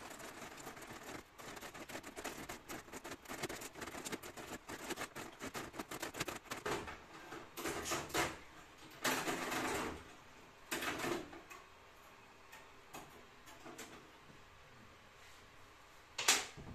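A 3D-printed rope-spinning gearbox turning, its plastic gears clicking rapidly as it twists printed strands into rope. There are a few louder, noisier stretches about halfway through and one sharp knock near the end.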